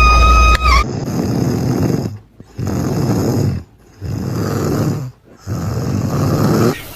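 An animal snoring loudly: four long breaths with short silent pauses between them. It is preceded by a short high whistling tone that cuts off just under a second in.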